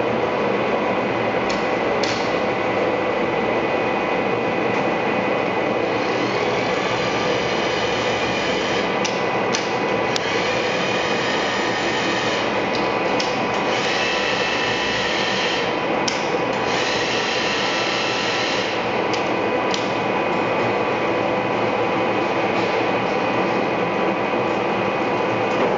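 TOS Trenčín SN 500 SA engine lathe running and turning a metal workpiece: a steady machine whine with several held tones over the noise of the cut, and scattered sharp clicks.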